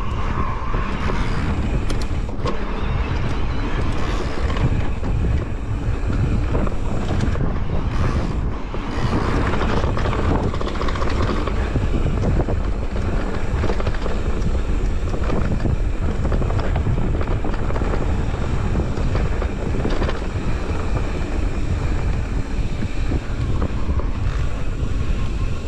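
Steady wind rumble on the microphone of a camera on an electric mountain bike being ridden, mixed with the tyres rolling over the track.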